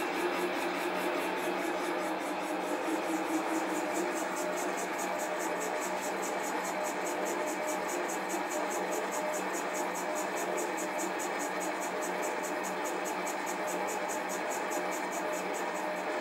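Sieg SC4 bench lathe running at 300 RPM on fine power feed while a between-centres boring bar cuts the inside of a cylinder sleeve: a steady hum and whirr with a faint regular pulse. There is no chatter, so the cut is running smoothly.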